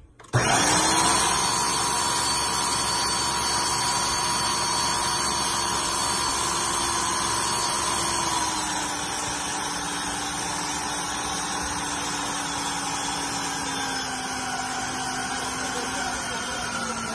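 Ninja Professional countertop blender switched on just after the start and running continuously as it blends a jar packed with plantain into a paste. Its motor whine drops slightly in pitch about halfway through and again near the end.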